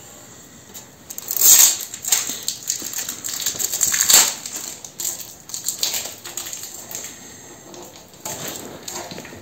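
Metal parts of an old motorcycle clinking, rattling and scraping as they are handled, with the loudest clatters about one and a half and four seconds in.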